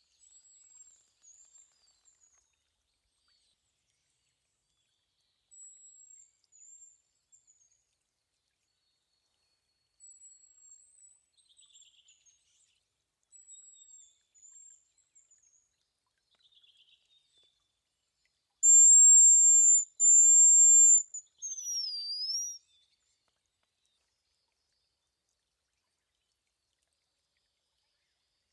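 Hazel grouse whistling its thin, very high song. Four faint, distant phrases come in the first half. About two-thirds in there is a much louder, close phrase: two long held notes, then a short note that dips and rises again.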